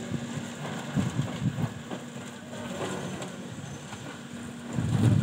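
Construction machinery engine running with a steady hum, with loud low rumbles about a second in and again near the end.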